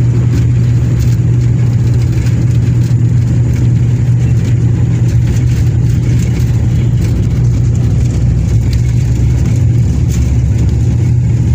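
Turboprop airliner's engines and propellers heard from inside the cabin: a loud, steady low drone as the plane rolls along the runway.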